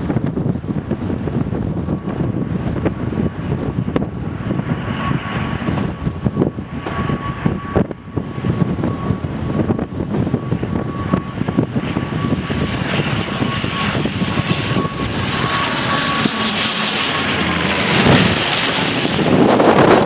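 ATR 72 twin-turboprop on a low approach, its engine and propeller drone with a steady whine growing louder as it comes in, then dropping in pitch as it passes overhead near the end. Gusty wind buffets the microphone throughout.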